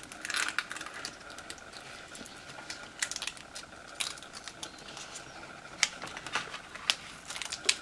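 Adhesive stencil film being peeled away from its backing sheet by hand while weeding cut letters: irregular sticky crackles and small clicks.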